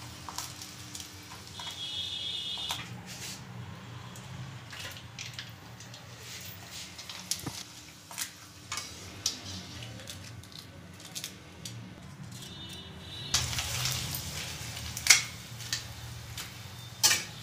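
Rice-flour papads frying in hot oil in a steel kadhai, with the oil sizzling and a metal spatula clinking and scraping against the pan as the papads are turned. The sharpest clinks come near the end.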